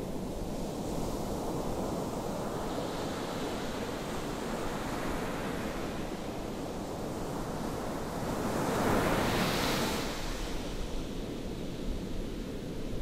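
Ocean surf washing steadily, with one wave breaking louder about eight seconds in and hissing for two seconds before it fades back. Light wind noise on the microphone.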